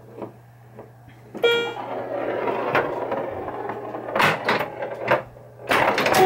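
Bally Fireball Home Edition pinball machine in play: sharp knocks and clacks of the ball and flippers, loudest in clusters near the end, with a short pitched electronic tone about a second and a half in. A steady low hum sits underneath.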